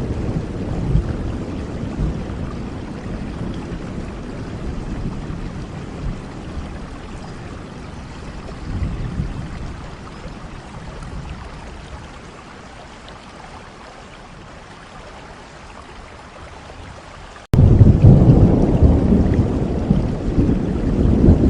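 Steady rain with rolling thunder: a deep rumble dies away over the first seconds, a shorter roll comes about nine seconds in, and the rain thins to a quieter hiss before a loud thunder rumble starts abruptly near the end.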